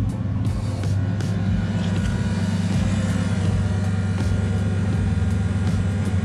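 Turbocharged 5.3-litre LS V8 in a 1964 Chevelle idling steadily.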